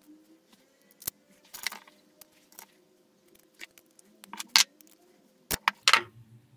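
Small metal and plastic parts clicking and rattling in the hands as a bolt and nut are fitted through a 3D-printed plastic pulley and gripped with a small metal tool. The taps are scattered, with a few sharper clicks about four and a half and six seconds in.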